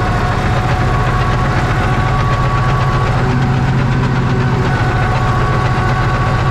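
Farm tractor's diesel engine running steadily at constant revs, with a faint steady whine over the engine note.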